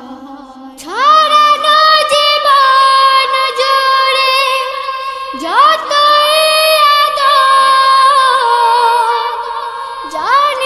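Children's voices singing long held notes in close harmony without instruments, as an interlude in a Bengali Islamic song (gojol). There are three phrases, each opening with a rising swoop: about a second in, around five seconds in, and near the end.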